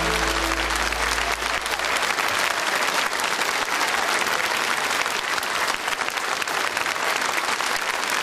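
Large audience applauding steadily. The last held notes of the song's accompaniment fade out in the first couple of seconds.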